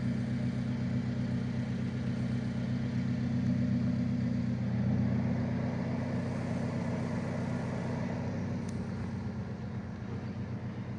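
Alfa Romeo 4C Spider's 1.75-litre turbocharged four-cylinder idling steadily.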